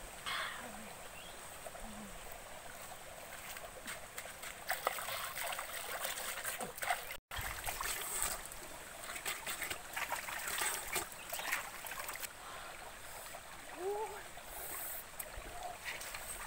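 Shallow rocky stream running, with water splashing and dripping as hands scoop it up to the face and bare feet step into the shallows. The sound cuts out for an instant about seven seconds in.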